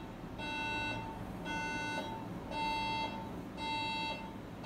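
Electronic beeping from a medical treatment device: a steady pitched tone repeating about once a second, each beep about half a second long.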